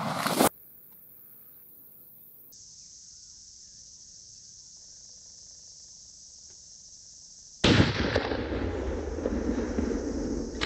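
A single rifle shot at a boar hog, a sudden loud crack after several seconds of faint outdoor quiet, followed by about three seconds of loud, rough rustling noise.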